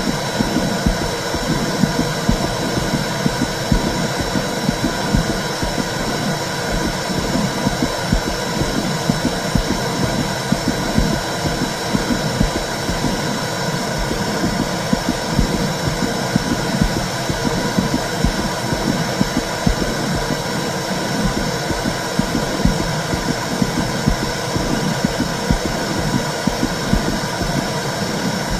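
Womb sound for soothing a baby: a steady, low whooshing rumble with a rapid, uneven throb.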